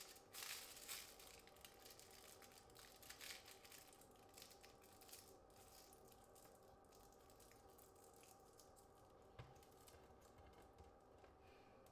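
Faint crinkling of aluminium foil being squeezed and folded between fingertips, loudest about half a second in and again around three seconds, over a faint steady hum.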